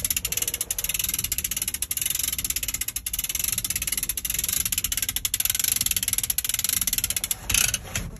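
Lever chain come-along being worked: a steady run of rapid ratchet-pawl clicks as it hoists the old Yanmar diesel engine on its chain, pausing briefly near the end.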